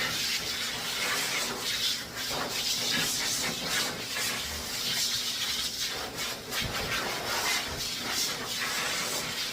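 Dog grooming dryer blowing a steady rush of air through a dog's wet fur, wavering as the airflow moves over the coat, then cutting off abruptly.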